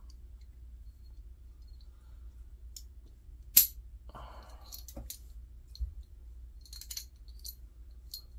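Light metallic clicks and clinks as a Remington 1100 shotgun's bolt assembly is handled, with one sharp click about three and a half seconds in and a brief rustle just after it.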